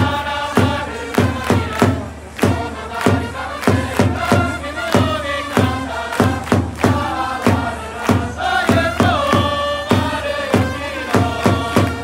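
A baseball cheering section chanting in unison to a steady drum beat of about two to three beats a second, with trumpets playing the tune.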